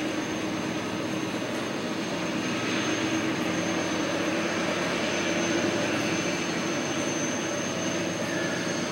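Diesel freight locomotives, not yet in sight, working hard up a steep grade: a steady low drone that grows a little louder over the first few seconds.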